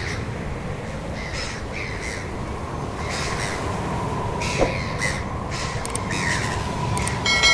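Crows cawing repeatedly, short harsh calls, over a steady low rumble and a faint steady high tone, with one sharp click a little past halfway.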